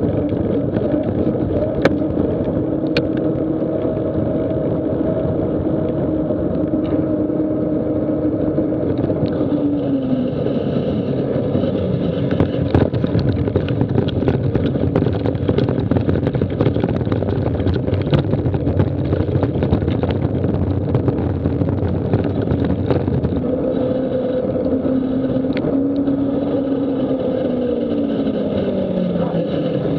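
Mountain bike ridden fast at night: steady rush of wind and rolling noise, with a hum from the tyres on tarmac whose pitch drops as the bike slows. In the middle it gives way to rattling and crunching over a rough dirt track, and the tyre hum returns near the end, falling again.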